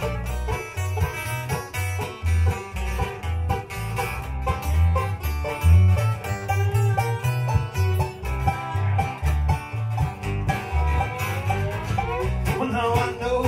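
Live bluegrass band playing an instrumental passage: banjo, fiddle and acoustic guitars over a steady low rhythmic pulse.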